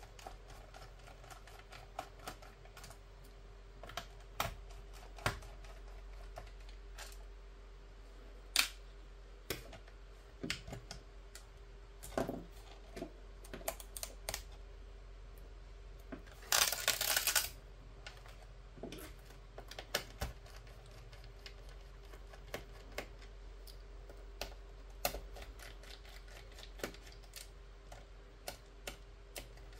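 Light clicks and taps of hands handling a laptop's plastic bottom case, scattered irregularly. A little past halfway comes a crackling rasp lasting about a second, as the rubber foot strip is peeled off its adhesive to reach the screws beneath.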